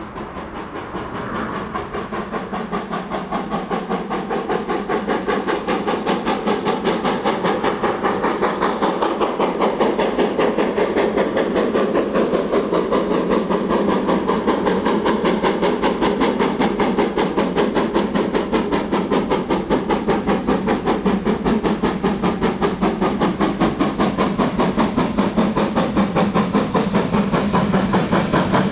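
Steam locomotive working, its exhaust beats fast and even with a hiss of steam, growing louder over the first ten seconds or so and then holding steady.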